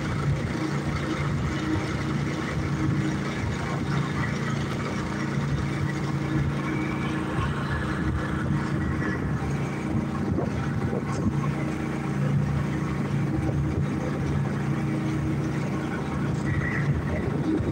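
A small engine running steadily on a bowfishing boat, a constant low hum that holds the same speed throughout.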